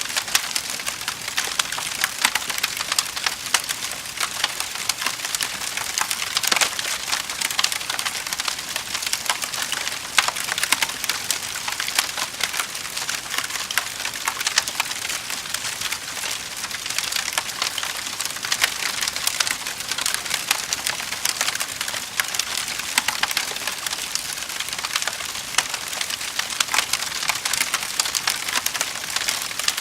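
Wood fire in a fireplace crackling steadily, with a dense stream of small pops and snaps.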